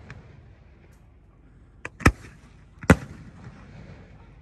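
Aerial fireworks bursting overhead: a faint pop near the start, then two loud, sharp bangs under a second apart, about two and three seconds in.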